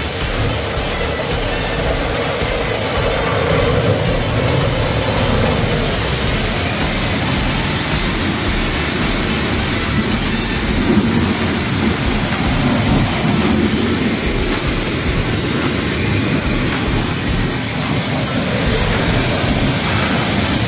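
Steam cleaner's jet hissing steadily as it sprays down engine-bay parts, over a low steady rumble.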